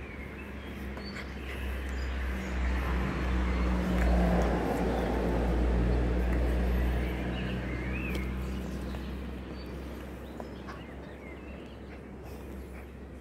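A car passing by: its engine hum and tyre rumble swell over a few seconds, then fade away again.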